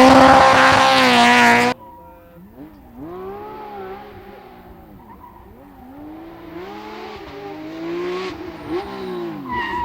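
Rally car engine running hard close by, cutting off suddenly about two seconds in; then another rally car engine, farther off, its revs rising and dropping again and again through gear changes and throttle lifts, growing louder toward the end.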